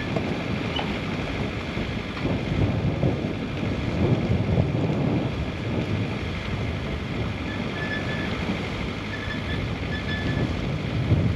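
Strong wind buffeting the microphone aboard a sailing yacht under way, a gusting low rumble that swells about two seconds in and again near the end.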